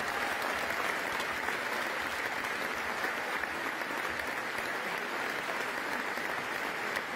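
Large arena crowd applauding, a steady dense clapping.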